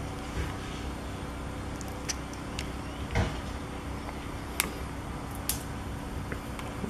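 Small clicks and ticks of a plastic oil bottle's cap and nozzle being handled and opened, with a dull knock about three seconds in, over a steady low hum.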